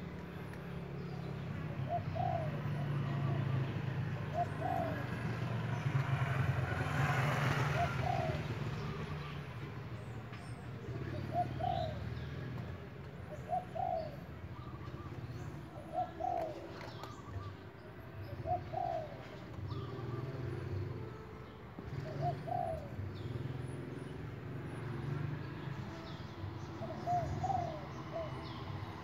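A dove cooing, one short call about every two seconds, over a steady low rumble that swells for a couple of seconds about seven seconds in.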